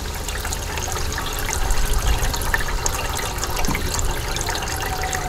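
Water trickling and washing across a Miller table, a flat gold recovery table, carrying fine concentrates over its surface, with a steady low rumble underneath.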